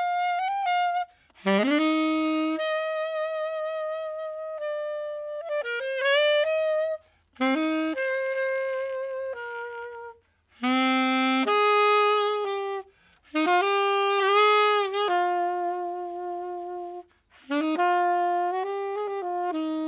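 Unaccompanied saxophone playing a slow melody: long held notes with vibrato, in phrases broken by short pauses for breath.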